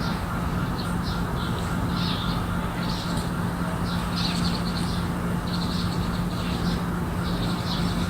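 Garden birds chirping and calling in short, repeated bursts, several a second, over a steady low hum and rumble.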